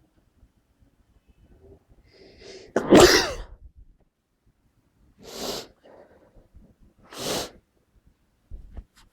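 A person sneezes once, loud and unstifled, about three seconds in, after a short catching breath. The pitch slides down through the sneeze. Two shorter, breathy rushes of air follow. The sneezer thinks they have caught a bad cold.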